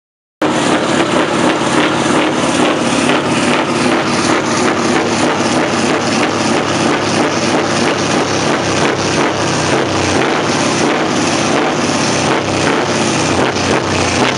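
Scania R500 truck's V8 diesel under throttle through its loud side exhaust: a dense, steady engine sound that cuts in abruptly about half a second in.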